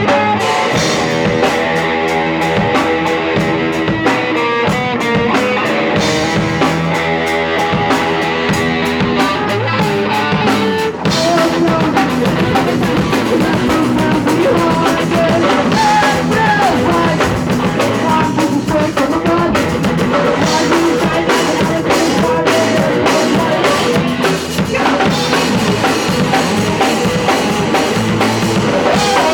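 Punk rock band playing live, loud: drum kit with electric guitar and bass, with a brief break about eleven seconds in before the full band comes back.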